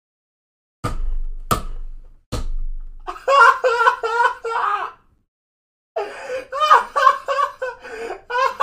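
Three sharp thumps in the first couple of seconds, then a man laughing hard in rapid ha-ha pulses, with a short break before a second run of laughter.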